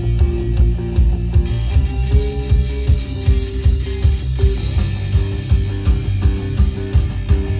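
A rock band playing live, heavy and loud: electric guitars holding a melodic line of sustained notes over bass and a steady drum beat with cymbal hits.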